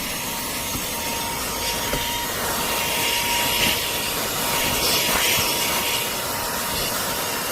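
NEXPOW cordless handheld car vacuum running steadily, with a faint whine in the first couple of seconds. The motor cuts off suddenly at the very end.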